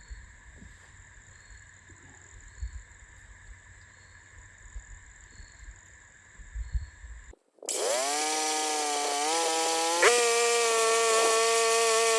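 A few low thumps, then a bandsaw mill's engine starts up and its pitch climbs as it spins up. About ten seconds in it steps up to a higher, steady running speed and holds there, loud and even.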